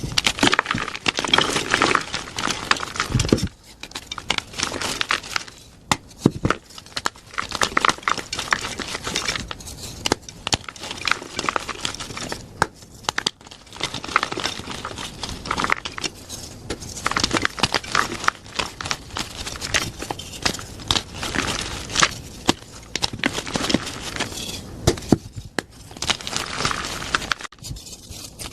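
Blocks of plain gym chalk being crushed and crumbled by hand: dense, crunchy crackling in runs, with short pauses between squeezes.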